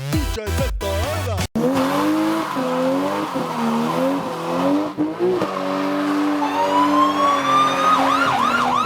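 The song's music stops about a second and a half in, giving way to a car burnout: the engine revving with its tyres squealing. Near the end a siren starts, a rising wail that breaks into a fast yelp.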